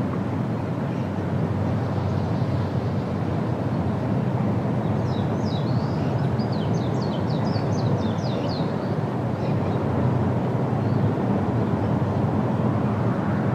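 Steady rushing noise of the Rhine Falls' water pouring, even and unbroken. A small bird twitters in a short run of chirps in the middle.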